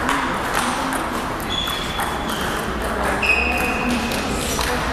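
Celluloid-type table tennis balls clicking off paddles and tables in quick rallies across several tables, echoing in a large hall, with a few high-pitched squeaks held for about a second.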